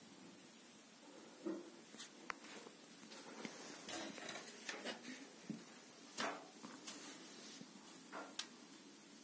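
Quiet room with scattered light taps, clicks and rustles, a few sharper ones near the middle.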